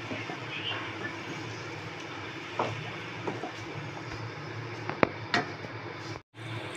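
Chicken pieces in a thick yogurt-and-black-pepper masala cooking in a kadhai on a low gas flame: a steady low sizzling rumble, with a few short scrapes and knocks as a wooden spatula stirs the chicken against the pan. The sound drops out for a moment near the end.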